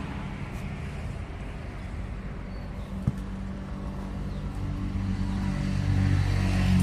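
A motor engine running with a steady hum that gets louder over the last couple of seconds, and a single sharp click about three seconds in.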